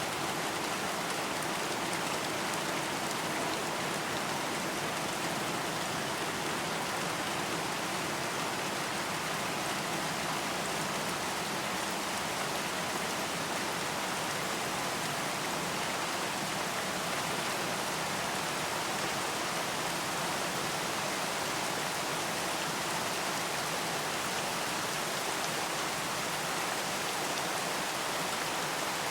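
Steady rain falling, an even hiss of many raindrops with no let-up.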